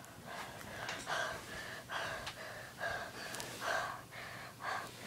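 A person panting close to the microphone, out of breath after running: quick, rough breaths, about two a second.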